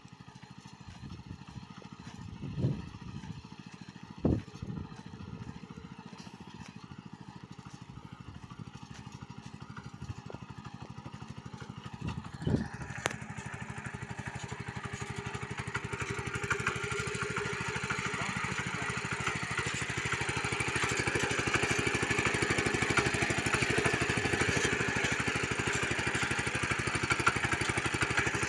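Small engine of a walk-behind power tiller running steadily while it hoes between soybean rows, growing louder about halfway through and staying loud. A few dull thumps come in the first half.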